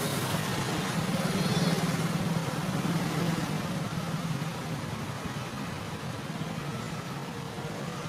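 Low, steady hum of a motor vehicle engine, loudest about two seconds in and then fading to a quieter drone.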